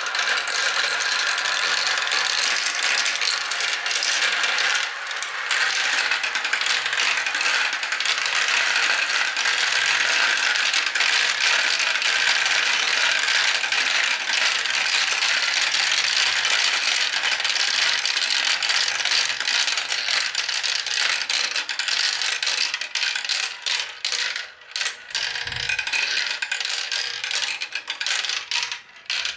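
Many marbles rolling and clattering down a plastic marble-run track: a dense, continuous rattle of small clicks. Near the end it thins out into separate clicks as the last marbles drop into the catch tray at the bottom.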